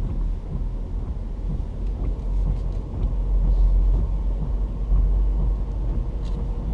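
Road and engine noise inside a moving car: a steady low rumble.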